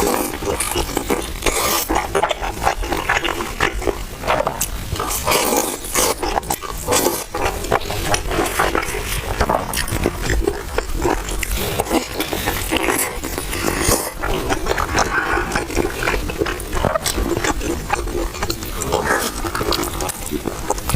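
Close-miked chewing of a crispy paper-thin stuffed pie: irregular crunches and wet mouth noises, bite after bite.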